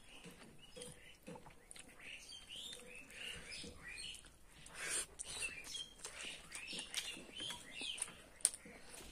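Wet chewing and lip-smacking of someone eating rice and curry by hand: a run of small clicks and squelches, with one sharper click near the end.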